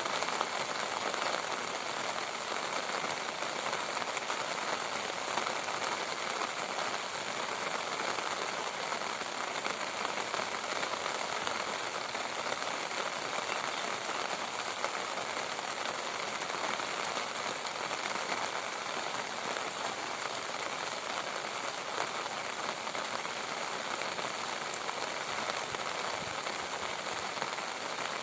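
Steady rain falling, a dense, even patter of drops that does not let up.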